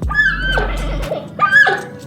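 An animal's swooping, gliding cries, twice, over background music.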